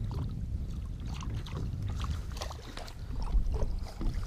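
Small waves lapping and splashing against the side of a fishing boat, with a topwater musky lure swishing and splashing through the water at boatside during a figure eight, over a steady low rumble.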